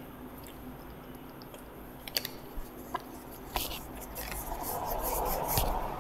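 A person drinking water from a bottle: a few sharp clicks of the bottle being handled, then a stretch of drinking noise that grows louder over the last two seconds.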